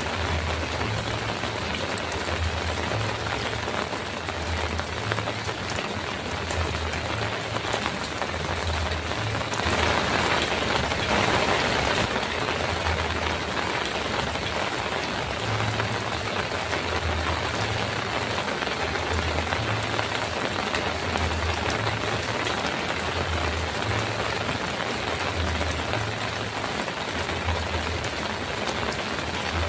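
Heavy rain drumming steadily on a metal roof, swelling heavier for a couple of seconds about ten seconds in. A low throb repeats about once a second underneath.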